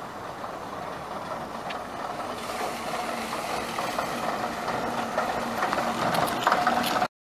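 Underfloor diesel engine of an AEC Regal IV RF-class single-deck coach running as the coach drives slowly past close by, growing louder as it nears. The sound cuts off suddenly near the end.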